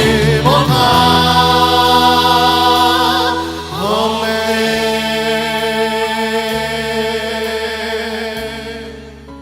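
Worship band and singers ending a praise song: voices hold long final notes over sustained keyboard-style chords and a bass that steps down every couple of seconds, then the music fades out near the end.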